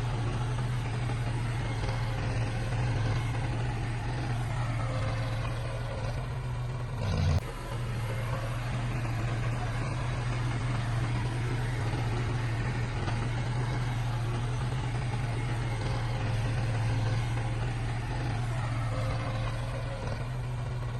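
Heavy diesel machinery engine running steadily with a strong low hum, broken by one abrupt jump in the sound about seven seconds in.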